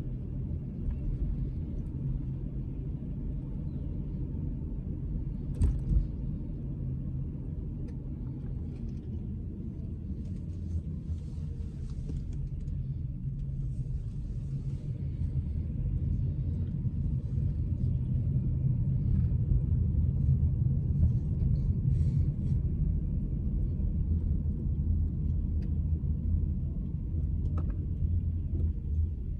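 Steady low rumble of a car driving, growing somewhat louder from about halfway through, with a few faint clicks.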